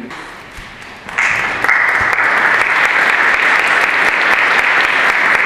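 Audience applauding, starting about a second in and cutting off suddenly at the end.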